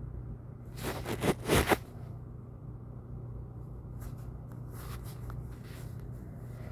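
Steady low hum with a brief rustling scrape about a second in, then a few faint taps while a search is typed on a phone's on-screen keyboard.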